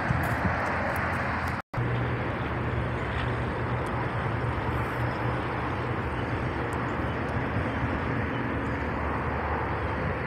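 Steady noise of freeway traffic, an even, continuous rush that cuts out briefly just under two seconds in.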